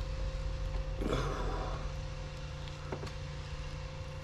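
Rubber intake boot being tugged loose from its pipe by hand: a brief rubbing scrape about a second in and a faint click near three seconds, over a steady low hum.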